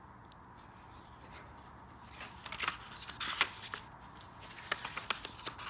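Hardcover book being handled and its front cover opened: paper and cover rustling with crisp crackles that begin about two seconds in.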